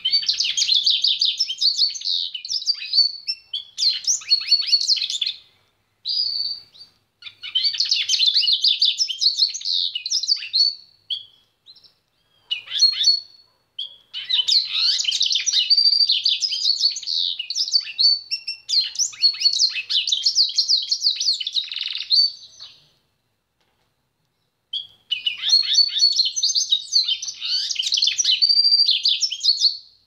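A grey pintagol, a goldfinch × canary hybrid, singing: long phrases of rapid twittering trills and chirps, broken by short pauses and one longer pause about two-thirds of the way through.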